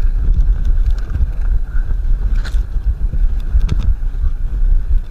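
A fatbike rolling fast downhill over snow: a steady low rumble of wind buffeting the microphone and fat tyres on the snow, with scattered clicks and rattles from the bike over bumps.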